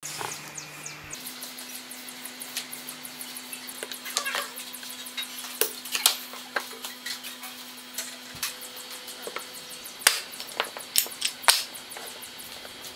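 Close handling sounds: scattered sharp clicks and taps as scissors snip the plastic nozzle of a super glue bottle and small wooden blocks are knocked together and set down on a wooden workbench, over a faint steady hum.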